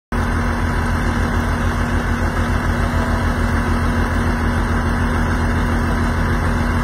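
Fire truck's engine running steadily at idle, with a rapid, even low throb.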